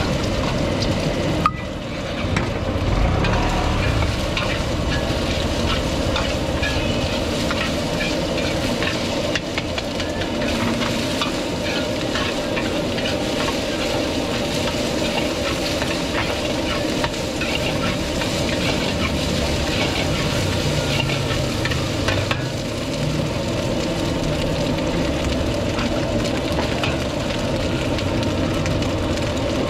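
Egg and diced ham sizzling in a hot iron wok, stir-fried for fried rice. A metal spatula and ladle scrape and clink against the wok in quick, uneven strokes.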